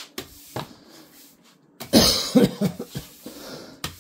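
A man coughing, a loud rough burst of several coughs about halfway through, after faint taps and scrapes of a broom on a tiled floor.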